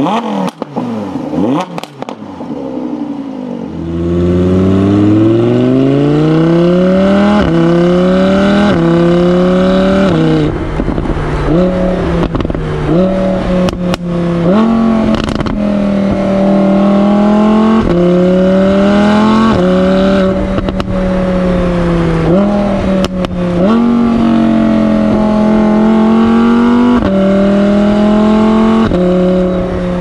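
Audi R8's 5.2-litre naturally aspirated V10 running just after start-up. About four seconds in it gets much louder and climbs steadily in pitch, then is blipped repeatedly, each rev rising sharply and falling back to a high idle.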